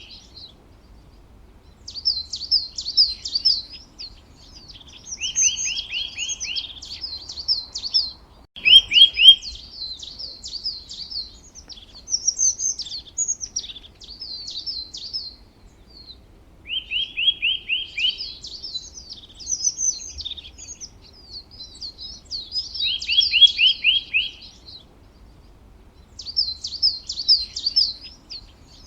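Songbirds singing: repeated phrases of quick high chirps, each with a fast run of rapidly repeated notes, broken by pauses of a second or two.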